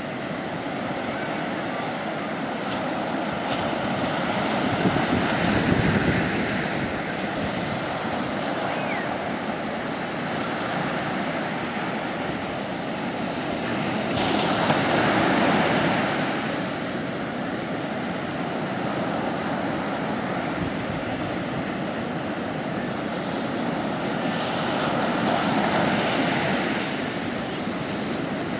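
Sea waves breaking and washing up a beach, a steady wash of surf that swells three times, about ten seconds apart, as each wave comes in.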